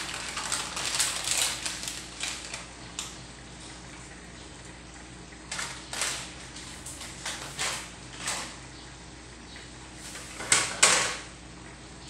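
Kitchen utensils being handled: scattered light knocks and clicks, with a louder double clatter near the end as a spoon is fetched.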